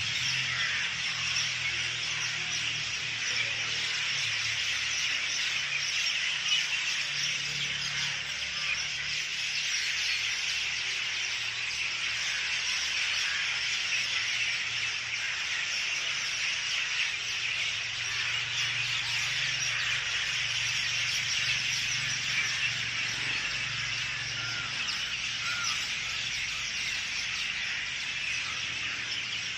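Many birds chirping and twittering at once in a dense, continuous chorus, with a faint low hum coming and going underneath.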